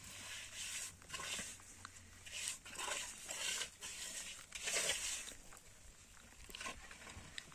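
Steel trowel working mortar on the top course of a concrete-block wall, in a series of irregular short strokes.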